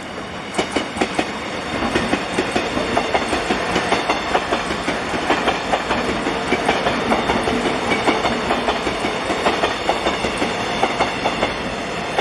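Taiwan Railways EMU500-series electric multiple unit running through a station without stopping, its wheels clicking in a fast, uneven run over rail joints and points. The noise builds over the first two seconds as the train comes level.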